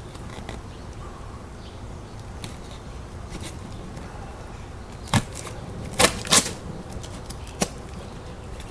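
Sharp clicks and knocks from handling and opening a shipping box: one about five seconds in, two close together about a second later, and a last one near the end, over a steady low background.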